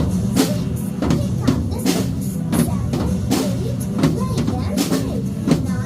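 Music with a steady drum-kit beat, about two beats a second, over a low bass line.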